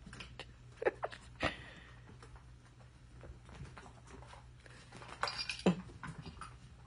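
Kittens scampering and pouncing on a rug and a carpeted cat tree: scattered light thumps and scrabbling of small paws, with a short flurry about five seconds in.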